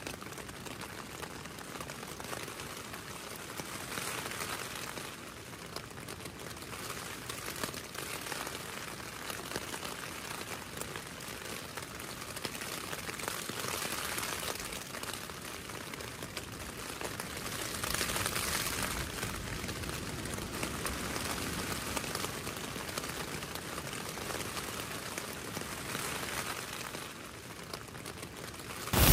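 Rain falling on tent and tarp fabric in a storm, a steady hiss that swells and eases several times, with the wind-shaken fabric crinkling.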